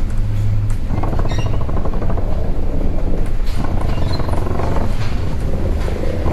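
Steady low drone and rushing wash of wind and sea heard from inside a tanker's wheelhouse as the ship ploughs through heavy storm waves.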